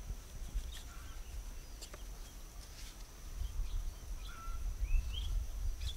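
Rural outdoor ambience: small birds chirp now and then over a steady high whine, with a low wind rumble on the microphone that grows louder about halfway through.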